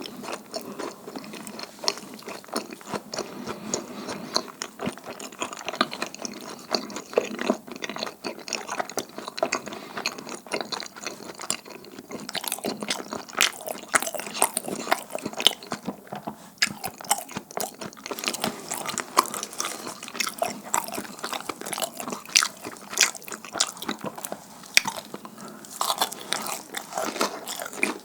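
Close-miked chewing and biting of sticky, chewy mandu hotteok (dumpling-filled pan-fried pastries): a dense, irregular run of wet mouth clicks.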